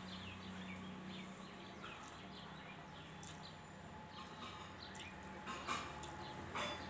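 Faint small birds chirping, scattered short falling chirps, over a low steady hum. Two soft knocks near the end.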